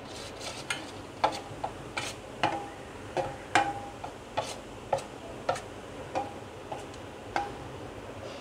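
Metal spoon stirring batter in a stainless steel bowl, clinking against the side of the bowl about twice a second, each clink with a short metallic ring.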